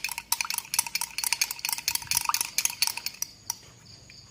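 A spoon stirring lime juice and sweet soy sauce, clinking rapidly and irregularly against the side of its container with a ringing tone; the clinking stops about three and a half seconds in.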